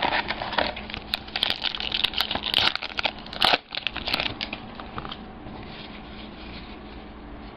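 Foil trading-card pack wrapper being torn open and crinkled, with dense crackling for the first few seconds, then quieter handling of the cards.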